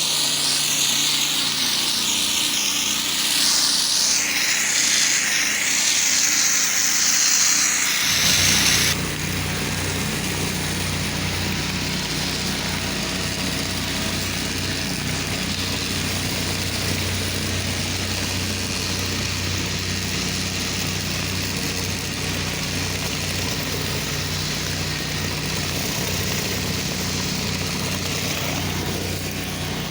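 Gas-engine pressure washer running. For the first eight seconds or so a loud, high hiss of water spraying at high pressure sits over it, then stops abruptly, leaving the engine's steady hum.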